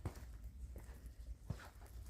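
A few soft footsteps of someone walking, about three quarters of a second apart.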